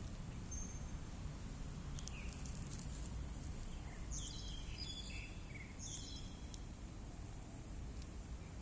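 Outdoor background of a steady low rumble, with small birds chirping in short high bursts about two seconds in and again between about four and six seconds in.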